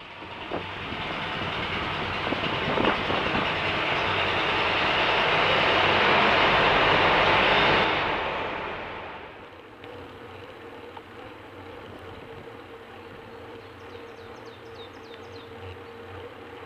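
Loud rumble of wind and road noise while cycling through a road tunnel, building steadily, then dropping about nine seconds in to a quieter steady noise of riding on open road.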